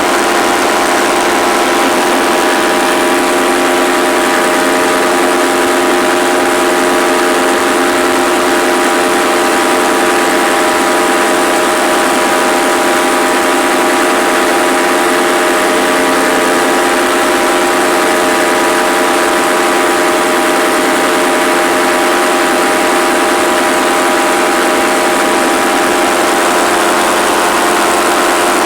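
Paramotor engine and propeller running at a steady, unchanging throttle, a loud continuous drone with a fixed pitch.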